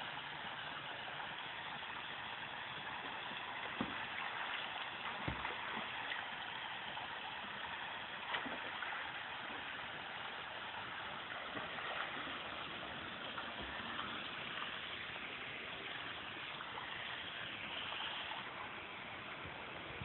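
Steady rushing of moving water in an outdoor swimming pool, with a few faint knocks.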